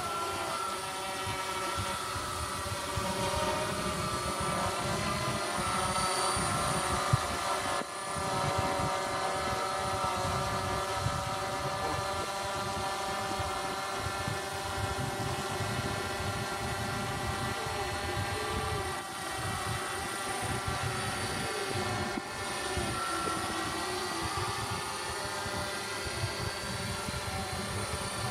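Small quadcopter drone in flight, its motors and propellers whining steadily with several tones. The pitch shifts slightly as the throttle changes, and the sound dips briefly a few times.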